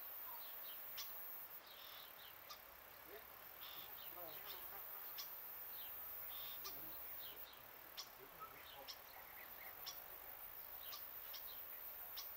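Faint outdoor ambience: small birds giving short, high chirps scattered through, with an insect buzzing.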